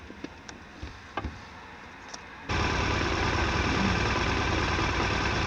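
A few small clicks and knocks, then, about two and a half seconds in, the steady running of a motorcycle engine at idle cuts in suddenly and loudly.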